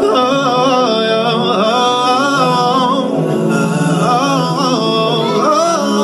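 R&B song: a singer's wordless vocal runs, the pitch bending up and down, over a backing track with sustained low chords.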